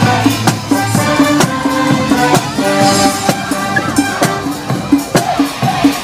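Parade music played by brass and drums: a marching tune of held brass notes over a steady drum beat about twice a second.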